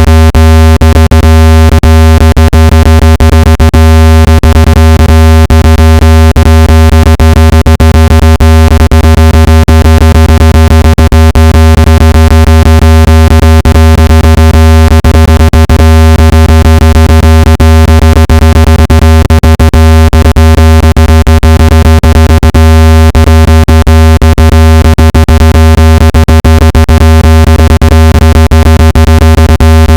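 Loud, steady low-pitched electronic tone with a buzzy stack of overtones and frequent crackling clicks: a speaker water-eject tone, played at full volume so the speaker cone vibrates and pushes water out.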